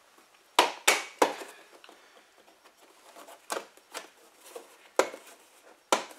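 Plastic door sill trim of a Ford F-150 being pulled up by hand, its retaining clips popping loose with sharp plastic snaps: three in quick succession about half a second in, then a few more spaced out toward the end.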